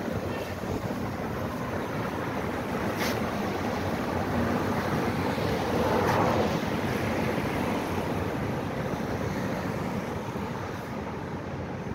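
City street traffic: a steady wash of passing cars, swelling to its loudest as a car passes close about six seconds in, then easing off.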